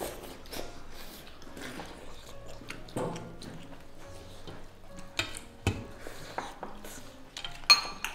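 Chopsticks and a plastic spoon clicking and scraping against porcelain rice bowls as children eat, in irregular light clinks with a sharp, louder clink near the end. Soft background music runs underneath.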